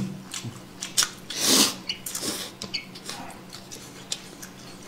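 Close-up eating sounds: noodles slurped from a bowl, with wet mouth clicks and smacks of chewing. Two louder, noisier slurps come about one and a half and two and a quarter seconds in.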